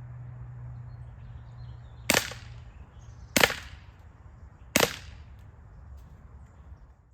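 ASG CZ75 SP-01 Shadow CO2-powered, non-blowback airsoft pistol fired three times: sharp pops evenly spaced a little over a second apart, with no slide cycling between shots.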